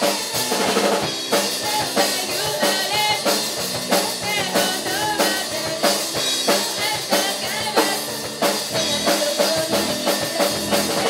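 Student rock band playing live: a drum kit keeps a steady beat of kick and snare under bass guitar and other pitched parts.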